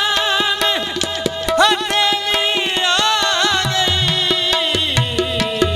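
Qawwali music: a harmonium sustaining the melody, with a wordless vocal run bending up and down in the middle. From about halfway, tabla strokes keep a steady beat.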